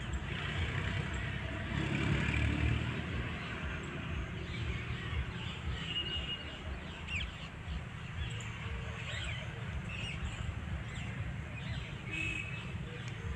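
Steady low background rumble with a few short, high bird chirps scattered through, mostly from about six seconds on; no loud peacock call.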